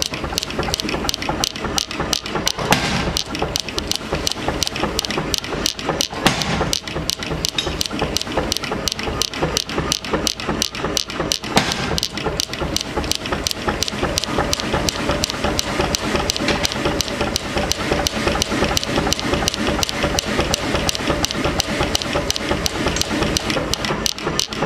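A mechanical forging hammer striking a red-hot steel billet on its die in a fast, even rhythm, about three to four blows a second.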